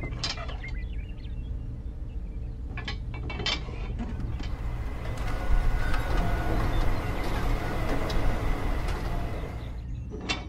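A few sharp clicks as a toy model is handled, then a whirring, rattling hiss from a small mechanism. The hiss builds about halfway through, holds for several seconds and fades near the end, over a steady low hum.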